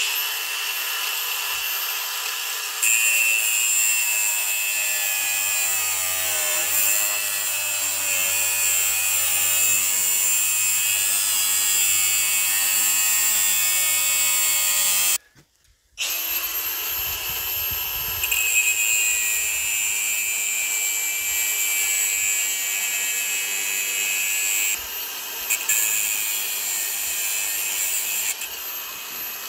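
Angle grinder with a thin cut-off disc cutting through steel: a steady high whine over a grinding rasp. It stops for about a second midway and then resumes as a Milwaukee cordless angle grinder cuts through a drive shaft.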